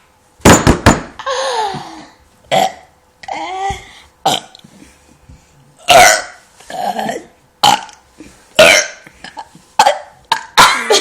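Forced burps from swallowed air, about ten in a row, some short and some drawn out with a sliding pitch.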